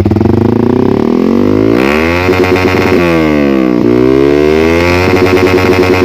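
Yamaha R15 V3's single-cylinder engine revved hard through an aftermarket R9 GP Series stainless exhaust. The revs climb sharply about two seconds in, drop back, then climb and fall again near the end.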